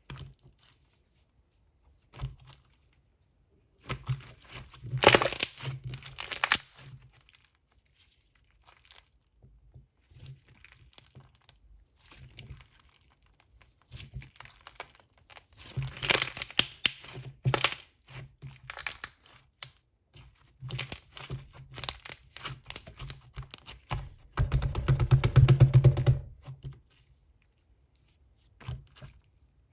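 Crinkling and tearing sounds in several spells with pauses between, the densest and loudest lasting a couple of seconds near the end.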